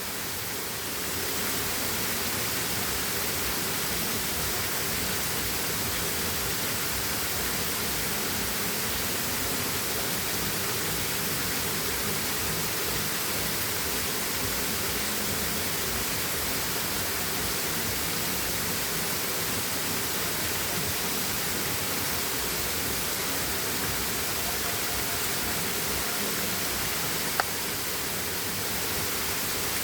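Waterfall rushing in a steady, even roar of falling water, with a single sharp click near the end.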